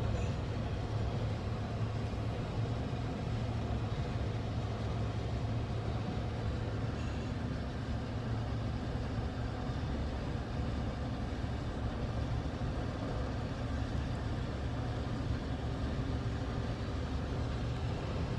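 Steady low hum of a pickup truck's engine running, heard from inside the cab.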